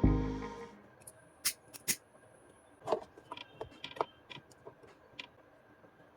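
Music fading out, then a scattered run of light, sharp clicks and ticks, irregularly spaced, of small hard objects being handled.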